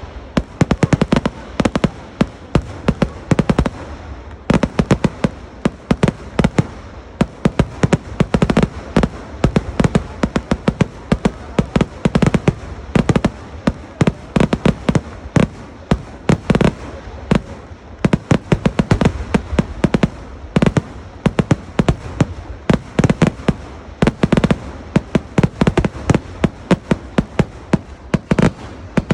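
Kerala temple-festival fireworks (vedikkettu) going off in a dense, unbroken barrage of loud bangs, several a second.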